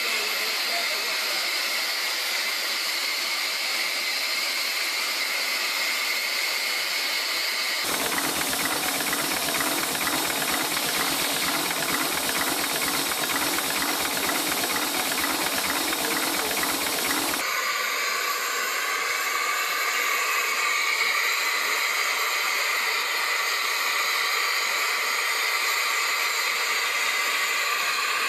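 Steam hissing steadily from the Sentinel S4 steam waggon's vertical boiler while it is in steam. From about eight to seventeen seconds in the sound changes to a fuller, lower noise with a fast, even flutter, then the steady hiss returns.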